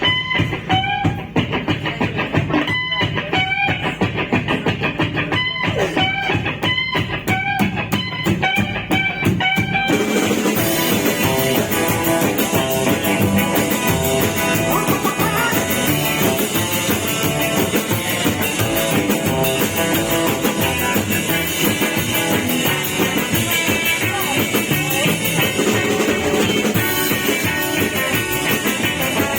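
Instrumental rock music from a band with guitar and drum kit, no vocals. For about the first ten seconds the playing is sparse, with separate guitar notes and drum hits, then the full band plays on densely.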